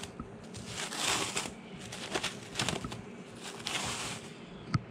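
Plastic cling wrap crinkling in several short rustling bursts as it is peeled back off a glass bowl, with a small sharp click near the end.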